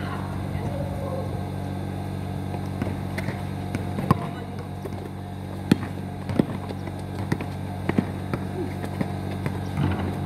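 A basketball thumping on an outdoor concrete court several times at uneven intervals during play, over a steady low hum and a few faint voices.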